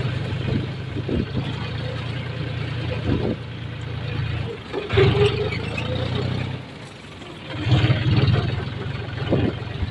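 Tractor engine running as the tractor drives slowly over a rough, narrow dirt track, with knocks and rattles from the bumps. The engine dips briefly twice, around the middle and again near seven seconds in, and picks up louder each time.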